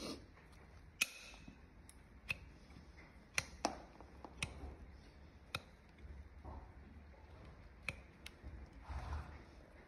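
Hoof nippers cutting through the overgrown wall of a horse's hoof, a sharp crack with each bite, about eight cuts at irregular intervals of roughly a second.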